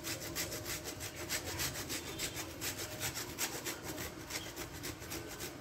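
Block of mozzarella cheese being grated on a flat stainless-steel hand grater: a quick, even rasping, about five scraping strokes a second.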